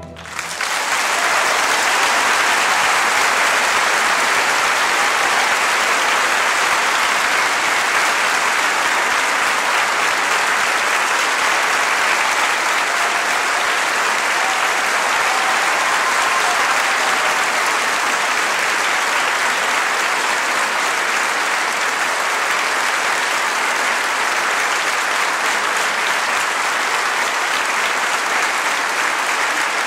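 Audience applauding: the clapping swells up in the first second as the music stops, then goes on as a dense, steady ovation.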